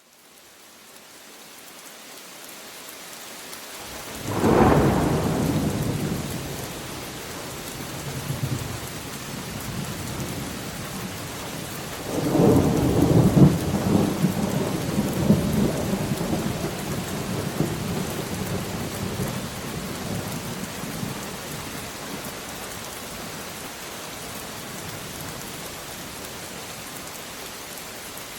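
Steady rain falling, fading in at the start, with thunder: a sharp thunderclap about four seconds in, a smaller rumble a few seconds later, then a long rolling peal from about twelve seconds that dies away over several seconds, leaving the rain alone.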